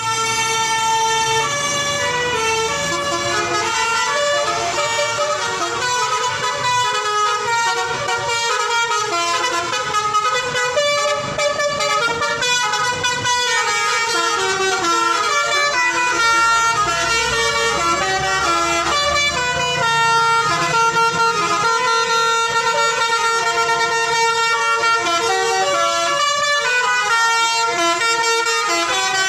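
Telolet horns on Setia Transindo buses: multi-tone air horns playing a quick stepping melody of many short notes, loud and without pause.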